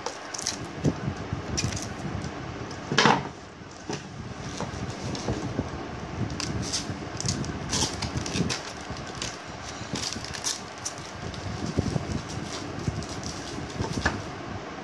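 Plastic monitor stand pieces handled and fitted together: scattered clicks and knocks, with one louder knock about three seconds in, over a steady fan-like hum.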